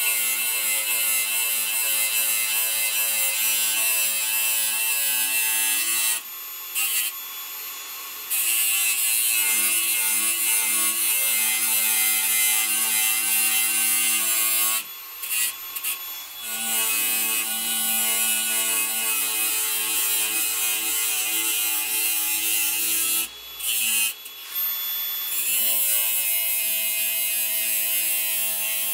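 Angle grinder with a thin cut-off disc cutting through the steel of an old saw blade: a loud grinding hiss over the motor's steady whine. Three times, about 6, 15 and 23 seconds in, the disc comes off the steel for a second or two and the grinding drops away.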